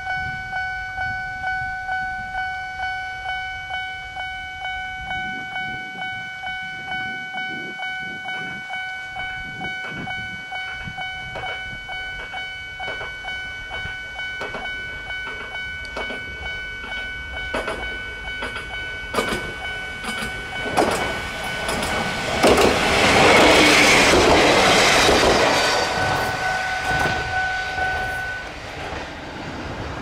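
Japanese railway crossing warning bell (the "kan-kan" sound) ringing in a steady repeating rhythm as a Kominato Railway train passes. From a little past halfway the train's wheels click over the rail joints and its running noise swells, loudest about three quarters of the way in. The bell stops shortly before the end as the crossing clears.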